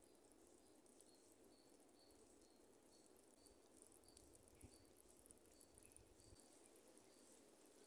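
Near silence: faint outdoor ambience with a soft, high, short chirp repeating about twice a second.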